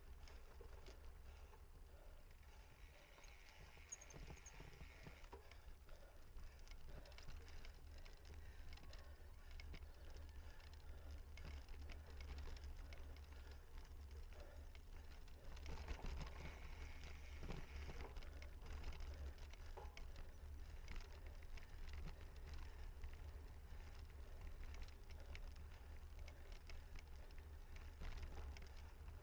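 Cyclocross bike being ridden: a steady low rumble of wind on the microphone with scattered small rattles and clicks from the bike.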